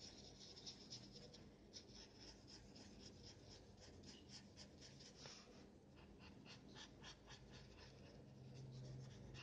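A black pen scribbling on paper, faint rapid strokes back and forth as it colors in a small shape, stopping shortly before the end.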